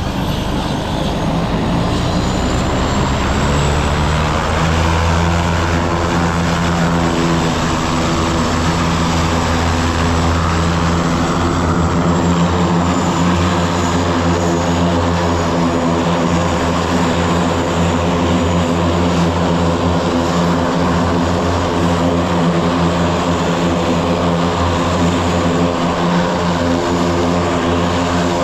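Float plane's propeller engine running close by, a steady droning hum that grows louder about four seconds in and then holds even.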